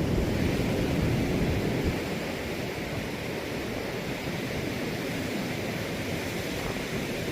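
Steady rush of surf and wind, with wind buffeting the microphone.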